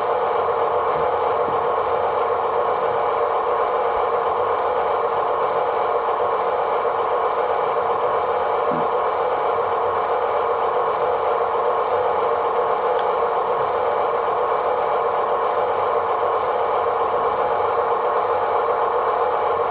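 A steady, unchanging mechanical whir of a motor running, with an occasional faint tick.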